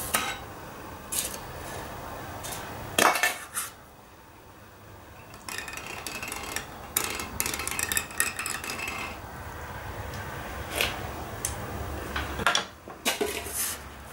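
Scattered clicks, knocks and light clatter of hand tools being handled at a workbench while a hot-wire foam cutter is worked on a foam block, with a low steady hum under much of it.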